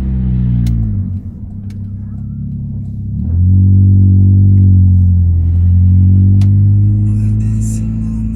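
Chevrolet Astra's four-cylinder exhaust through a stainless-steel aftermarket muffler being revved: a deep drone whose revs fall back to a low idle, then climb and hold twice. Music starts to come in near the end.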